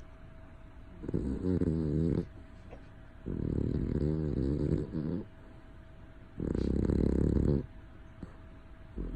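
A sleeping pet snoring loudly: three long, low snores a couple of seconds apart, with a fourth just beginning at the end.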